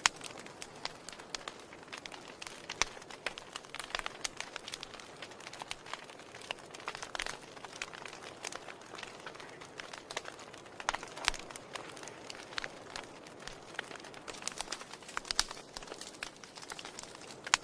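Wood fire crackling in a fireplace: irregular sharp pops and snaps over a soft steady hiss, with a few louder pops scattered through.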